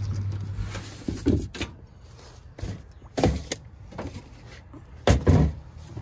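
A run of knocks and clanks as tools and cases are pulled from a work van's storage bins, with a door or latch sounding among them; the loudest come about three seconds in and again near the end. A low hum fades out in the first second.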